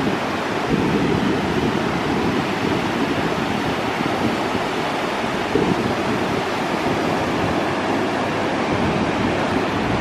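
Ocean surf breaking and washing ashore in a steady, full rush that swells slightly about a second in and again about halfway, with wind buffeting the microphone.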